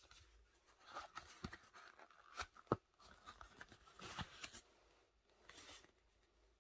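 Faint rustling and rubbing of a WESN Forsta wallet's vegetable-tanned leather as fingers flex and slide over it, in several short spells with small ticks, the sharpest one near the middle.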